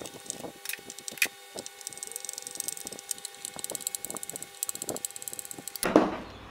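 Screwdriver turning small screws into the steel bearing retaining plate of a mitre saw's arbor, with fine clicks, ticks and scrapes of the tip in the screw heads over a faint steady hum. The plate is being fastened down over a 1.15 mm steel shim to take up the arbor's end float. A louder thump comes near the end.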